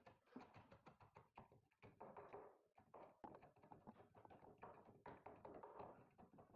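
Faint, irregular small taps and clicks of hand work on a door lock being fitted.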